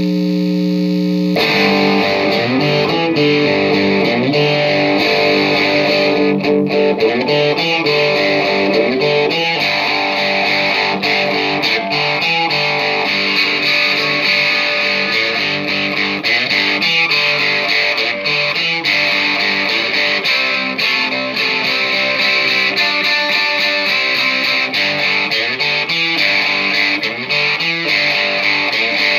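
Electric guitar with a distorted tone: a single note held, then from about a second and a half in, continuous lead playing with notes bending and sliding in pitch.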